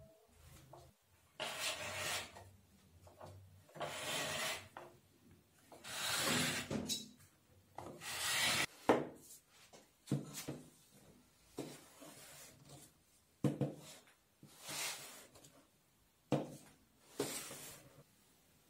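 Handmade wooden hand plane run along a shooting board, taking shavings off the edge of a softwood board in several long strokes. Short knocks of the plane and the wood being handled come between the strokes.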